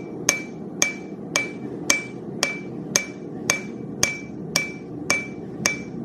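Hand hammer striking a steel cone drift on an anvil in steady forging blows, about two a second, each with a short metallic ring. The light, even strokes are planishing the cone: rounding and smoothing it into shape.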